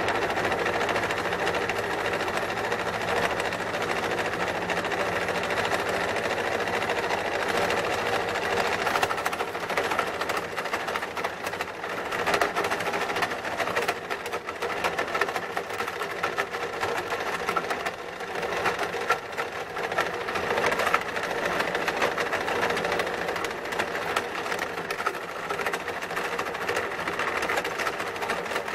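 Homemade jaw rock crusher running, driven by an electric motor through a belt and pulley: a steady motor hum under a constant rapid rattle of clicks and cracks from the cam-driven jaw working on gold-bearing quartz ore.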